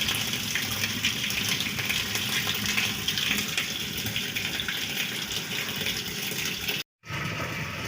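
Tap water running steadily through a hose into a washing machine's wash tub as it fills. It cuts out for a moment near the end.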